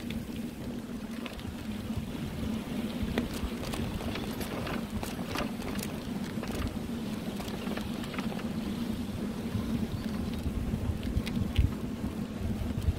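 Wind rushing over the microphone and the rumble of a bicycle riding over a rough forest track, with a steady low hum underneath and scattered clicks and knocks from bumps and rattles.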